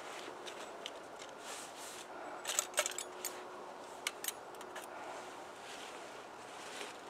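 Thin dry twigs being broken and handled in gloved hands: soft rustling with a cluster of sharp snaps about two and a half seconds in and a few more around four seconds.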